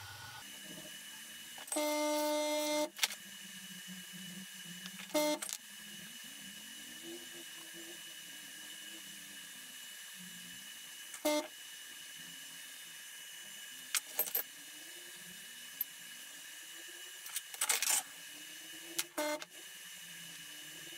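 Steel rods clinking and knocking against each other and the wooden mould box several times, over a steady faint hiss. About two seconds in, a louder held pitched tone sounds for about a second.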